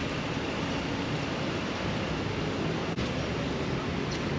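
Steady outdoor background noise, a low rumble with hiss above it, and one faint click about three seconds in.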